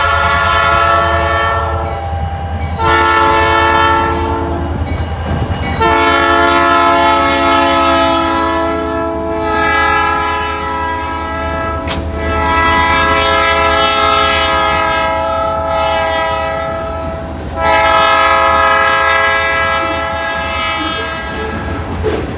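Diesel freight locomotive's air horn sounding a chord in a series of blasts, mostly long with a shorter one early on, as a loaded grain train sounds for a road grade crossing. A steady low diesel rumble and the rolling of the freight cars run beneath it.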